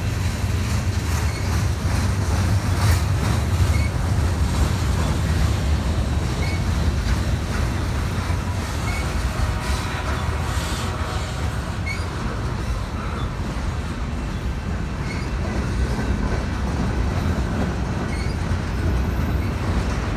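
Freight cars of a passing freight train rolling by close at hand: a steady low rumble of steel wheels on the rails, with wheels clicking over the rail joints.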